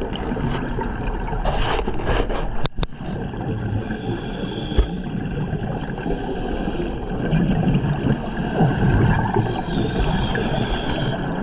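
Underwater sound on a night dive: a steady mechanical drone with bubbling and scraping.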